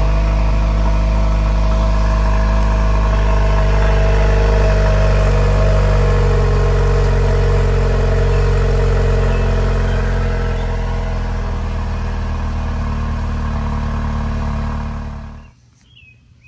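Jeep Wrangler JL's 2.0-litre turbocharged four-cylinder idling fast just after a cold start, heard at the stock exhaust tip. The idle settles a little lower about ten seconds in, and the sound cuts off suddenly near the end.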